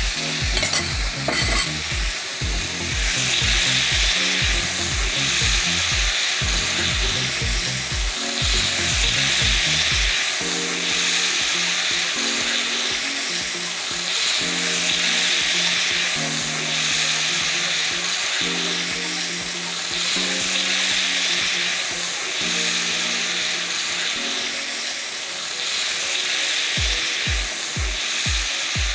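Steak strips and vegetables sizzling as they stir-fry in a hot pan, a steady hiss that runs on under background music with a regular beat.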